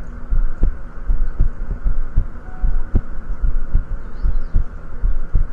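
A person's heartbeat heard close up: steady, evenly spaced low thumps, a little over one beat a second.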